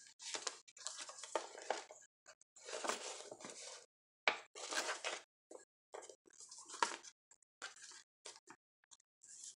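Paper rustling as the pages of a handmade junk journal are turned and a folded paper flap is opened out by hand, in a string of short bursts with brief gaps between them.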